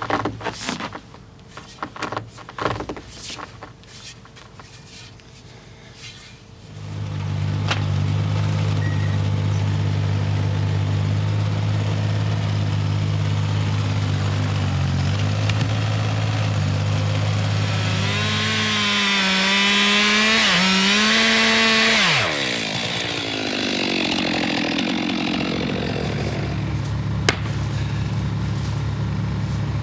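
Scattered knocks, then a chainsaw starts about seven seconds in and idles. Around two-thirds of the way through it is revved to full speed for about four seconds, its pitch climbing, then drops back to idle.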